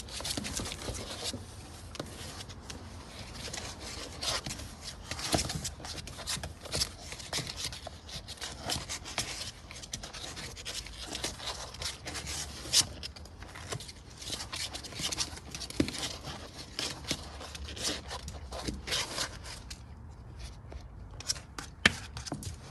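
Golden retriever puppies' claws scratching and scrabbling at a cardboard box, a busy run of scratches with a few sharper knocks.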